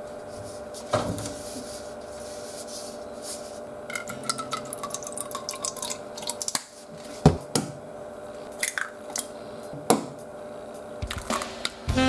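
A thin stream of seasoning liquid poured from a plastic bottle into a lacquered bowl, trickling with a pitch that falls steadily, then a few sharp knocks as eggs are cracked and dropped into the bowl, over a low steady hum.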